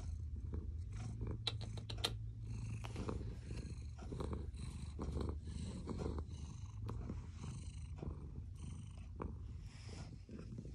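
Domestic cat purring steadily close to the microphone, the low rumble swelling and easing with each breath about once a second.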